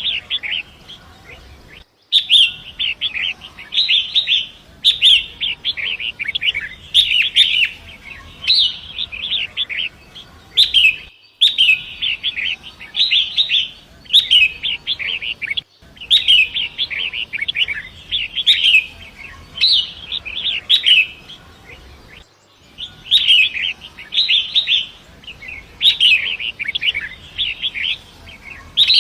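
Long-tailed shrike (pentet) singing in short, scratchy, chattering phrases of about a second each, one after another, over a faint steady hiss of rushing river water. The sound cuts out for a moment four times.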